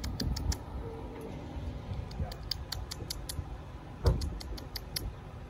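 Light metallic clicks and clinks in a few short clusters, with a creak: a chain-link gate and its hanging chain being handled. A soft knock comes about four seconds in.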